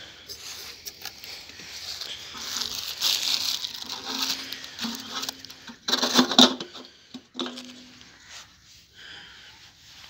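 Hands pulling a tied rag and wrapping off the filler neck of a diesel engine's fuel tank: rustling and crumpling, loudest in the middle, with a few knocks about six seconds in.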